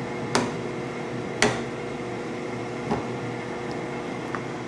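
Metal tongs and a spatula knocking against a stainless steel pot, three sharp clinks spread over about three seconds with the second the loudest, then a faint tick near the end, over a steady mechanical hum.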